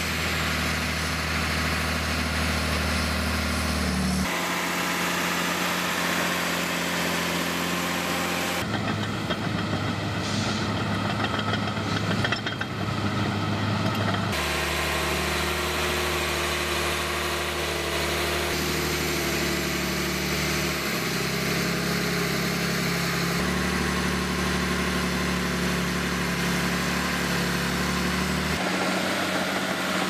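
Crawler bulldozer diesel engines running steadily under load. The engine note changes abruptly every few seconds as the sound jumps between separate shots, with a rougher, noisier stretch about a third of the way in.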